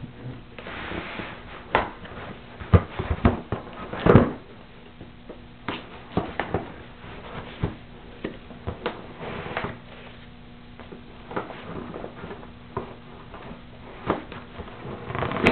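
Scattered knocks, clicks and rustling from handling a boxed tripod and its cardboard packaging, with the loudest knock about four seconds in, over a faint steady hum.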